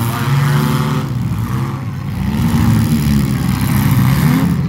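Demolition derby car engines running and revving, their pitch rising and falling.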